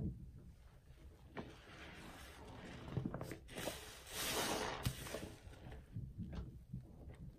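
A soaked sponge pressed down and squeezed in a sink of soapy water: wet squelching and fizzing lather. The longest and loudest squeeze comes about three to five seconds in, with a few sharp clicks and soft splashes.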